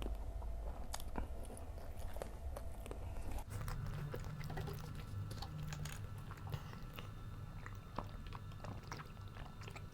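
A person chewing gorengan (Indonesian deep-fried fritters) with raw chillies, with scattered small crunches and wet mouth clicks.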